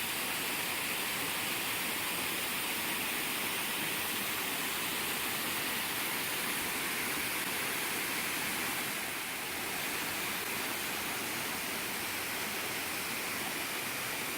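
Waterfall rushing steadily, a constant even roar of falling water heard from a distance up the hillside.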